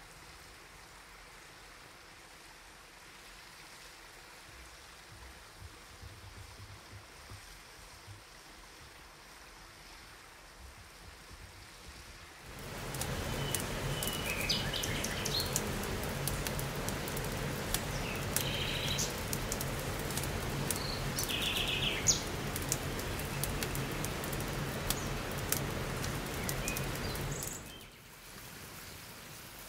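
Outdoor ambience: a faint hiss, then from about twelve seconds in a louder steady rushing noise with scattered sharp crackles and a few short bird chirps. It stops abruptly near the end.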